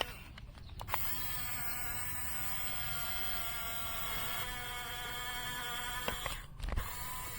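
Small electric motor of a Huina radio-controlled excavator whining steadily for about five seconds, shifting slightly partway through. Clicks come as it starts and again as it stops.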